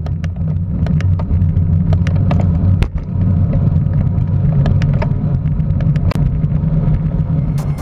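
Wind rushing over a bicycle-mounted camera while riding at speed, a steady low rumble with irregular sharp knocks from the tyres hitting cracks in the road.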